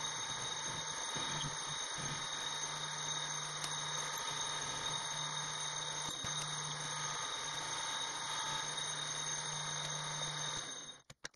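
Metal lathe running while a carbide insert takes a facing cut across the end of the spinning workpiece: a steady mechanical whine with several high-pitched tones, cutting off suddenly near the end.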